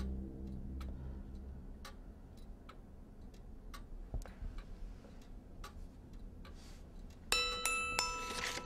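A clock ticking about twice a second, faint, while a low held drone fades out in the first second. About seven seconds in, music of loud struck notes that ring on begins.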